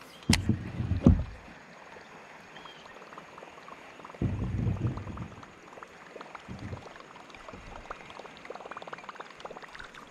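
Handling noise on a kayak during a baitcaster retrieve: a sharp click just after the start, low thumps twice, and faint water sounds with light ticking near the end as the lure is reeled in.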